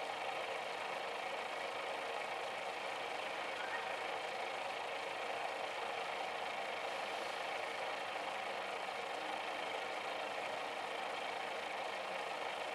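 Steady, even hum and hiss of an aquarium air pump driving an air stone in the water.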